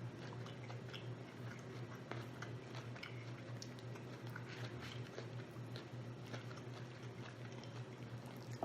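A person chewing rotisserie chicken close to the microphone, with many small wet mouth clicks scattered throughout over a steady low hum.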